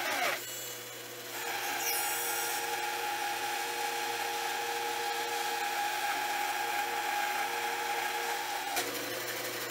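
Homemade wooden 12-inch band saw with a 1/2-inch blade resawing a wide board of solid red oak at its full resaw height: a steady cutting sound over the hum of the running saw. The cutting starts about a second in and stops near the end as the blade comes through the board, leaving the saw running free.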